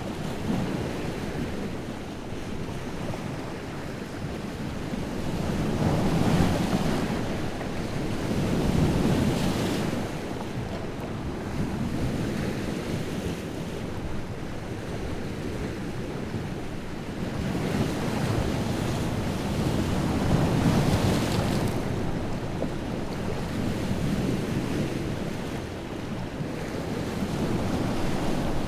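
Freshwater lake waves breaking and washing on the shore in a strong wind, a steady wash that swells into several louder surges as larger waves crash.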